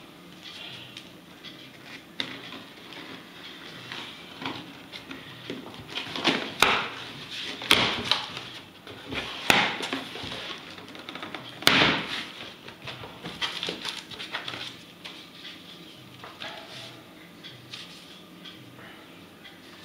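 A taped cardboard box being opened by hand: tape slit and torn and the flaps pulled back, with several loud, sharp rips between about six and twelve seconds in. Then quieter rustling of cardboard and paper as papers are lifted out.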